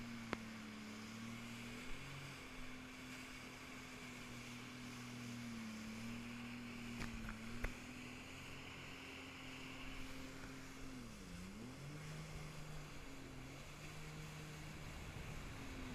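Jet ski engine running at speed with a steady drone over the hiss of water spray. About eleven seconds in, the engine pitch dips sharply and comes back up, settling lower than before. A few brief knocks come around seven seconds in.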